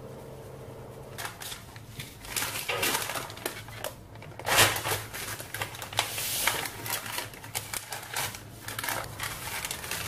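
Parchment baking paper and aluminium foil rustling and crinkling in irregular bursts as a baked tart is handled on them, with the sharpest crackle about four and a half seconds in. A low steady hum fills the first second before the rustling starts.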